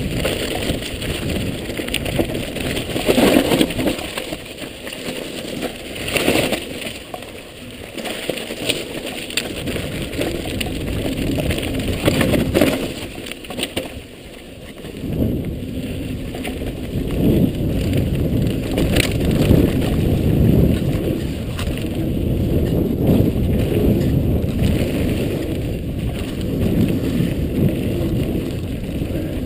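A mountain bike ridden fast down a dirt downhill trail: steady rumble and rattle from the tyres and frame over the ground, with scattered knocks over bumps and wind on the microphone.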